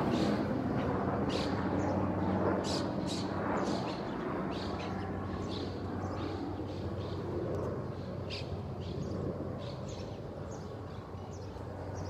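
Small birds chirping: many short, high calls scattered throughout, over a steady low hum and an outdoor rumble that fades over the first few seconds.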